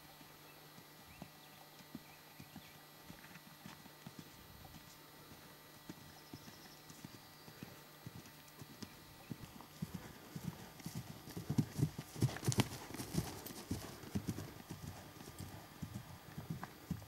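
Horse cantering on a sand arena, its hoofbeats a rhythmic run of dull thuds. They grow loudest a little past the middle, then ease off.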